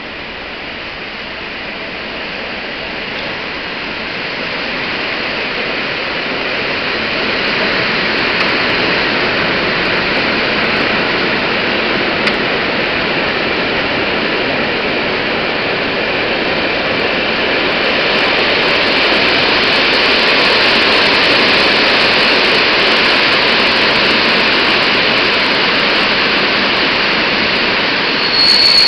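Passenger train pulling into a station: a steady rushing of wheels and coaches on the rails that grows louder over the first ten seconds or so and then holds. A high steady squeal starts right at the end.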